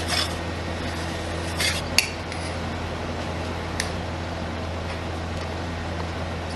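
Metal spatula scraping across the steel cold plate of a rolled-ice-cream machine, with a few short scrapes in the first two seconds and a sharp metallic click at about two seconds, then a lighter tap near four seconds. A steady low hum runs underneath.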